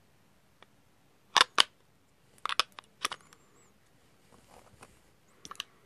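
Sharp hard clicks and taps, several in quick pairs, from the Vaporesso Revenger box mod being handled and set on the tabletop. The loudest pair comes about a second and a half in.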